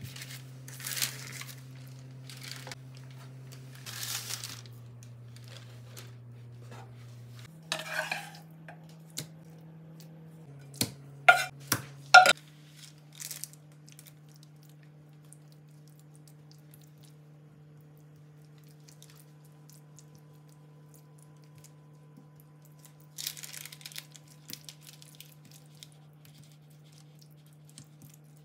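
Kitchen dishes and utensils clinking and knocking, with the sharpest clanks about eleven to twelve seconds in.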